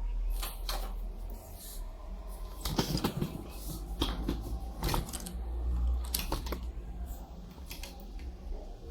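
Irregular light clicks and taps from small objects being handled while homeopathy medicines are mixed, over a steady low hum.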